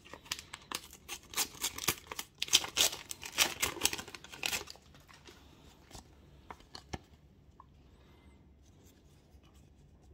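A Panini sticker packet being torn open: a few seconds of crinkly tearing of the paper envelope, then a few light clicks and rustles as the stickers are handled.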